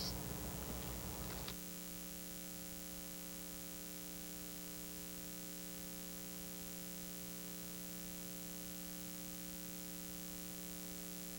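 Dead air from a failed live feed on a TV news broadcast: a steady electrical hum with a faint hiss, after a short, slightly louder unsteady stretch in the first second and a half.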